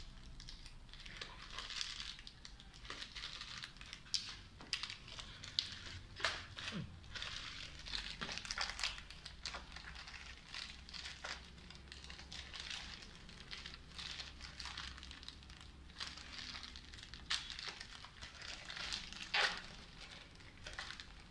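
Gift wrapping being peeled open by hand, paper rustling and crinkling in short, irregular crackles as a pair of drumsticks is unwrapped.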